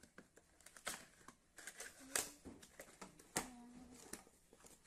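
Cardboard toy box with a plastic carry case inside being handled and pressed against a tabletop: scattered taps and clacks, with three sharper knocks about one, two and three and a half seconds in.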